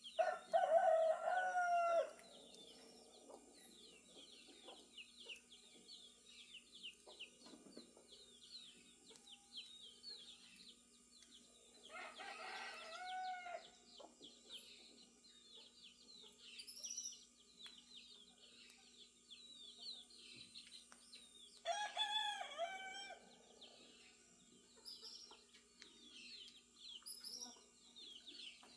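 A rooster crowing three times, the first crow the loudest, the others about twelve and twenty-two seconds in, over a steady dawn chorus of small songbirds chirping.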